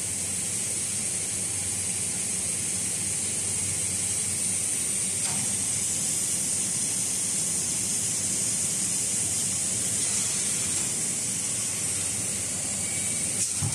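Automatic maxi roll labeling and handle application machine running: a steady high hiss over a low machine hum.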